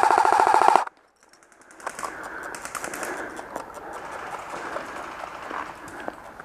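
Airsoft gun firing a rapid full-auto burst that cuts off just under a second in. It is followed by quieter rustling with scattered small clicks and pops.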